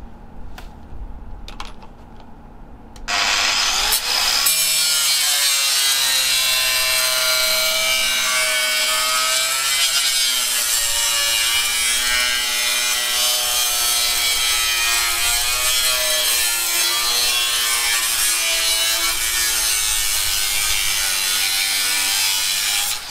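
Angle grinder with a cutting disc cutting through aluminium. It starts about three seconds in and bites into the metal a second or so later. It runs as a loud, steady screech whose pitch wavers, then stops near the end.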